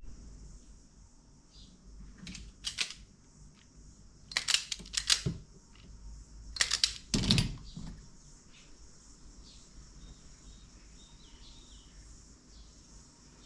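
Sharp clicks and rattles of small parts and tools being handled during wiring work, in three short clusters, over a steady high hiss.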